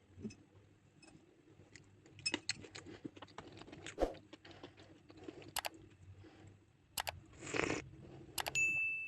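Small crunches, clicks and taps of food and tiny utensils being handled in a miniature kitchen, with a longer rustling burst near the end. A steady high tone starts just before the end.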